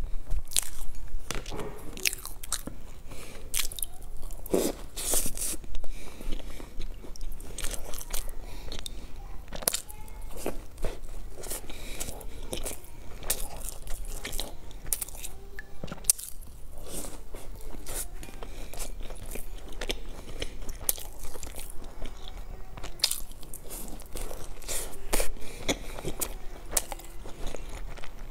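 Close-miked eating: irregular bites and chewing of toasted bread, with crunching and sharp clicks.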